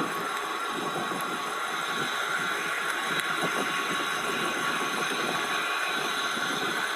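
A vehicle engine idling steadily, with irregular rustling and handling noise over it.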